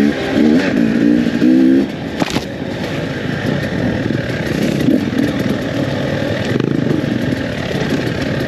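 Dirt bike engine revving up and down hard for about two seconds, then running on more steadily as the bike is ridden.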